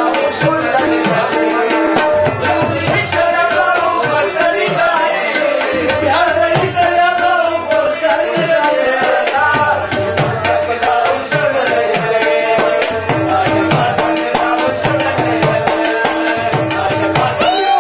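Live Pashto folk music: a pair of tabla drums played in a quick, busy rhythm under an electronic keyboard melody, with a man singing.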